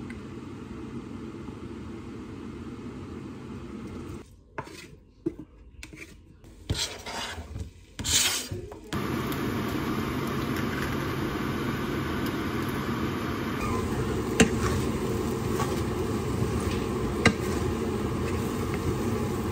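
A wooden spoon stirring a pot of soup, then a few short clattering knocks. From about nine seconds in, chicken, onion and egg sizzle louder in a nonstick wok as a wooden spatula stirs them, knocking sharply on the pan twice.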